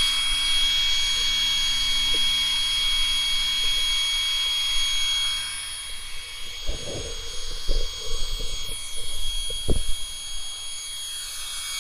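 Steady high-pitched electric whine with a low hum from a powered-on Traxxas Maxx RC car's motor and speed controller, fading about halfway through. A few soft thumps follow.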